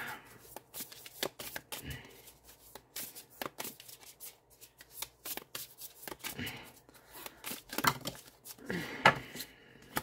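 A tarot deck being overhand-shuffled by hand: a quick, irregular run of card clicks and slaps as small packets of cards drop against the deck.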